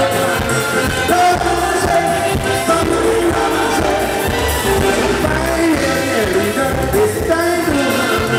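Live calypso: a man sings into a microphone over a band.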